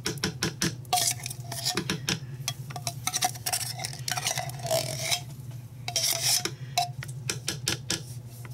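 Metal fork scraping thick condensed cream of mushroom soup out of a tin can into a slow cooker pot: repeated scrapes and clinks of the fork against the can, a few with a brief squeak, over a steady low hum.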